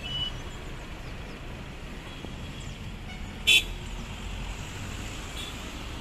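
Heavy lorry's air horn: the last note of a melodic horn tune right at the start, then one short, loud toot about three and a half seconds in, over the steady low rumble of the loaded lorry's engine and tyres as it goes downhill.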